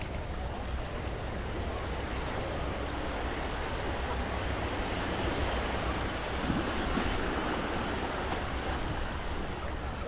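Sea waves washing onto a sandy beach: a steady surf hiss that swells a little about two-thirds of the way through.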